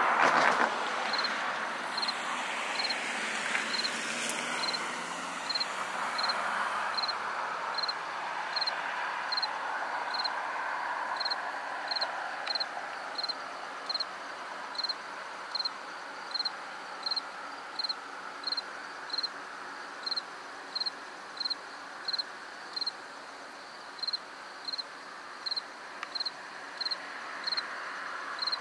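A cricket chirping at a steady pace, about one and a half chirps a second, over a steady background hiss that is louder in the first few seconds and swells again near the end.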